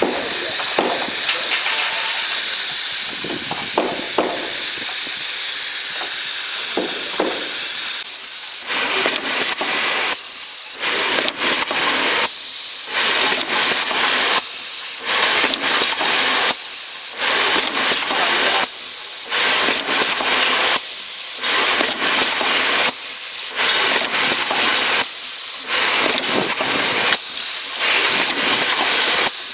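Automatic dropper-bottle feeding and filling machine running with a constant hiss. From about eight seconds in, the hiss pulses in a regular rhythm, dipping about every two seconds as the machine cycles.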